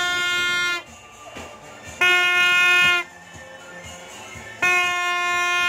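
A horn sounding three long blasts, each about a second long and held at one steady pitch: the first at the very start, one about two seconds in, and one near the end.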